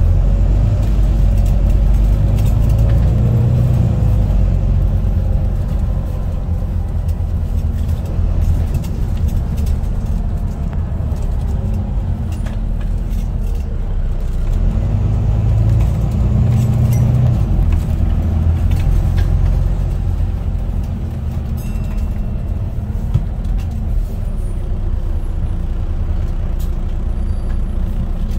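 Wright Gemini 2 double-decker bus heard from inside the passenger saloon while driving: a steady low engine and road rumble, with the engine note swelling as it pulls away twice, and small rattles and clicks from the interior.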